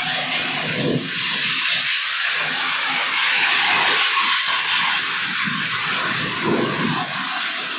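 A loud, steady rushing noise with lower rumbles that swell and fade every second or two: the odd sound heard at One World Trade Center, audio-enhanced.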